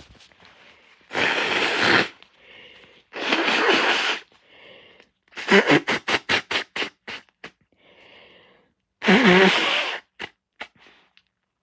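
A person blowing a congested, snotty nose hard, in three long blows of about a second each and a run of about a dozen quick short blows, with short breaths in between. The later blows are honking.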